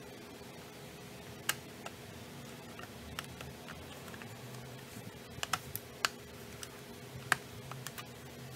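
Hard plastic clicks and knocks as a black plastic top cover is handled and pressed onto a plastic instrument case. The clicks are scattered and irregular, a few in the first half and a quicker cluster between about five and eight seconds in.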